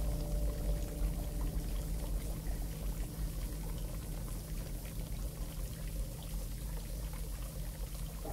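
Shower running: a steady hiss of spraying, pattering water, with a low steady hum beneath it.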